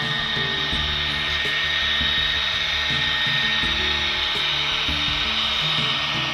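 HO-scale model diesel locomotives rolling past, giving a steady mechanical whir and hiss from their motors, gears and wheels, with background music underneath.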